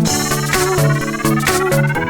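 Electronic dance music: a synth pattern with a sweep rising in pitch, the kick drum dropped out.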